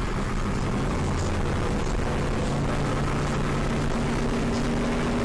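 Cars running at highway speed: a steady engine drone over wind and road noise, the engine note rising slowly in pitch in the second half.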